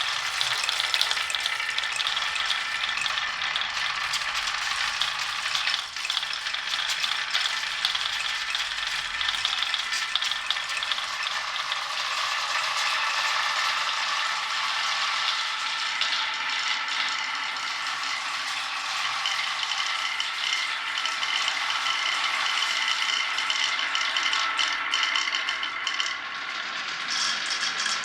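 Glass marbles rolling and clattering along a marble-run track, a dense, steady rattle that goes on without a break.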